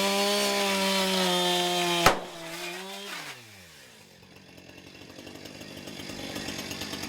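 Two-stroke chainsaw running at full throttle, cut by a single sharp bang about two seconds in; the throttle then drops and the engine winds down to a fast idle chatter that grows louder toward the end.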